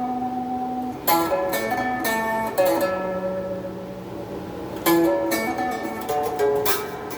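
Donner DST-80 Strat-style electric guitar played through its small included practice amp: picked notes and chords ring out, with new ones struck about a second in, near three seconds and near five seconds.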